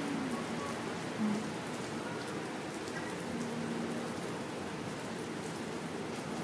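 Steady rain falling on wet paving, an even hiss.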